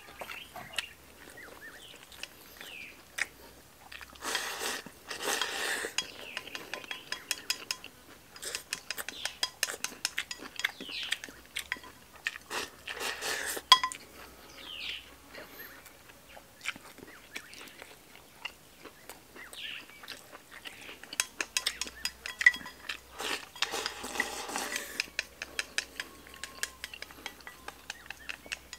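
Wooden chopsticks clicking and tapping against porcelain bowls and a plate while a man eats, with chewing. There are three longer scraping stretches, typical of rice being scooped from a bowl held to the mouth.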